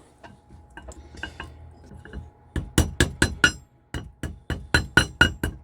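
Hammer tapping thin annealed copper sheet folded around a nail, forming it into a tube. About a dozen sharp metallic strikes come at roughly four a second, starting about two and a half seconds in after a few faint clicks.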